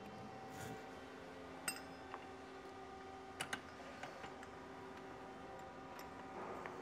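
Light metallic clicks of a hex key working bolts through extender blocks into a reel mower's roller bracket: about half a dozen sharp clicks, the loudest under two seconds in and a quick pair around three and a half seconds, over a faint steady hum.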